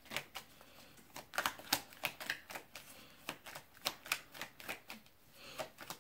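Tarot deck being shuffled by hand: cards tapping and slapping together in irregular short clicks, about two a second.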